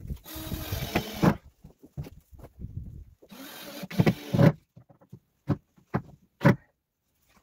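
Cordless drill driving screws into wafer-board (OSB) wall sheathing: two runs of about a second each, the second about three seconds after the first. A few short knocks follow.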